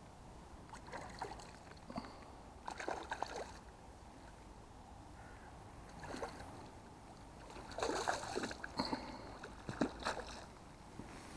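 Small hooked trout splashing at the surface as it is played in toward the landing net: several irregular splashes, the biggest about eight and ten seconds in.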